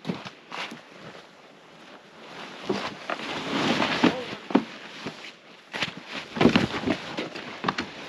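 Nylon fabric of a pop-up hub ice shelter rustling and flapping as its wall panels are pushed out, in two rustling spells with a few sharp snaps.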